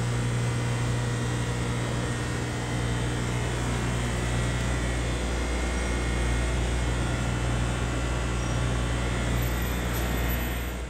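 Steady hum of running electrical machinery: a strong low drone with several fainter steady tones above it.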